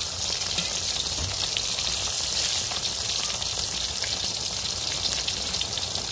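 Slices of tempeh deep-frying in hot oil in a wok: a steady high sizzle with small crackles and pops.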